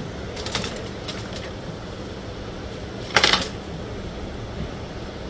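Small metal hand tools clinking and clattering on a workbench: a few light clicks about half a second in, then a louder rattle of clicks a little after three seconds, over a steady background hum.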